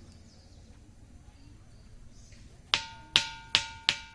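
A ringing rock (lithophone boulder) struck with a small hand-held stone: after a quiet start, four sharp strikes come less than half a second apart near the end, each ringing on with a clear metallic, iron-like tone.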